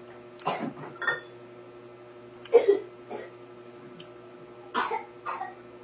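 A woman's short throat sounds, caught from the chilies in her food, coming in three quick pairs about two seconds apart.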